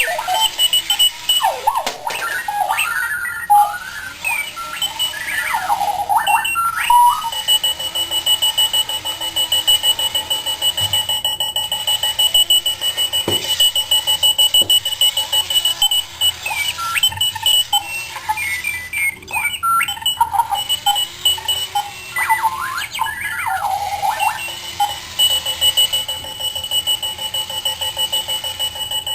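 Clocky runaway alarm clock sounding its electronic alarm: a string of fast beeps and warbling, sweeping chirps, with a long run of steady rapid beeping in the middle.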